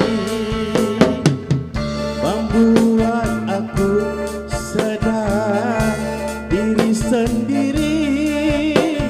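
Live band playing a Malay pop song on a PA system: electronic keyboard, electric guitars and drums on a steady beat, with a man singing a wavering melody into the microphone.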